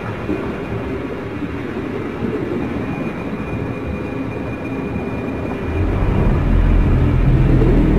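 A deep, dense rumbling drone that swells heavier and louder about six seconds in.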